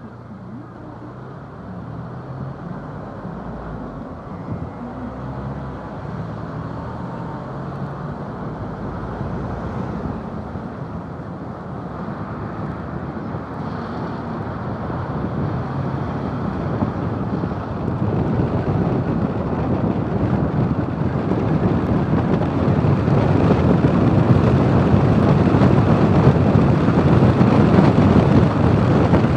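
Wind rushing over a roof-mounted microphone on a moving camper van, with a low engine hum in the first several seconds. The rushing grows steadily louder as the van picks up speed.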